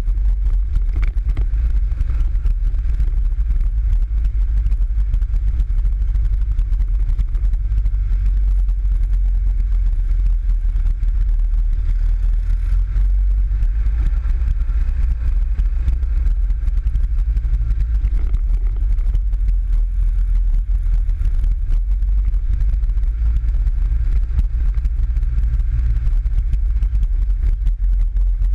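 PGO 500i off-road buggy's engine running steadily as it drives along a dirt trail, heard from on board as an even low rumble with no changes in pace.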